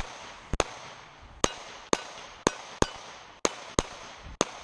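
A Taurus PT111 Millennium G2 9mm pistol firing a string of about ten sharp shots, roughly two a second.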